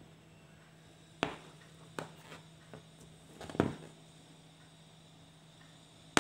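Aari hook needle punching through the fabric and pulling the silk thread up in chain stitches: a few short soft taps spaced about a second apart, then a sharper tap at the very end.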